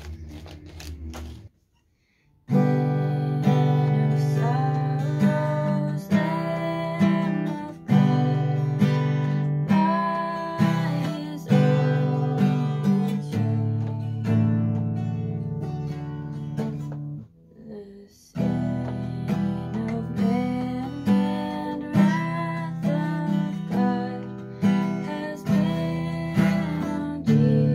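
Acoustic guitar strummed in chords with a voice singing over it. It starts after a brief silence about two seconds in and breaks off for about a second partway through.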